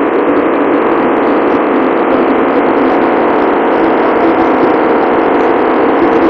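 Steady, loud machinery noise of a large ship under way, an even wash of engine and ventilation sound that does not change.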